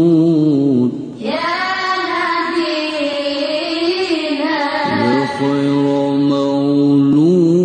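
A solo voice singing a slow, chant-like melody in long held notes that waver slightly and glide between pitches, with short breaks between phrases about a second in and about five seconds in.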